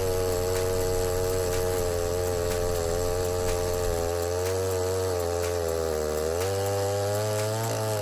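Neotec 8105 105cc two-stroke chainsaw running at high revs, ripping a marri log lengthwise through a 42-inch bar in an Alaskan chainsaw mill. The engine note holds steady, sags briefly about six seconds in under the load, then picks back up.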